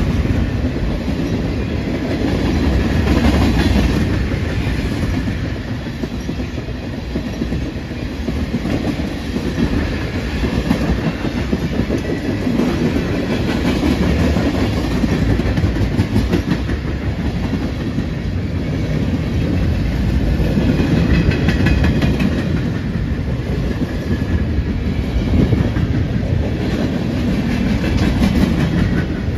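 Freight train cars rolling past close by: a steady heavy rumble with the rhythmic clickety-clack of wheels passing over the rail joints.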